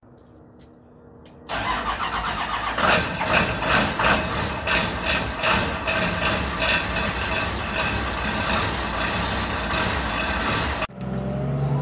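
Car crusher's engine starting: it catches suddenly about a second and a half in and runs on with a loud, rapid clatter. The sound breaks off abruptly near the end.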